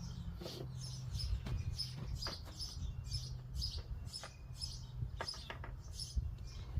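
High-pitched chirping repeated about twice a second, with a steady low hum underneath and a few light clicks.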